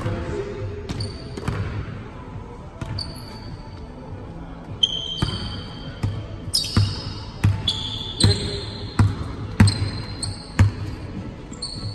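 Basketball being dribbled on a hardwood court, thudding in a steady rhythm that is quicker and louder in the second half, with sneakers squeaking sharply on the floor between bounces.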